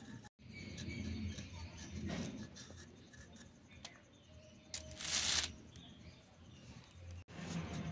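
Small raw green mango being peeled against a boti, an upright curved kitchen blade: soft scraping and slicing of the skin on the blade, with a louder scraping hiss lasting about half a second roughly five seconds in.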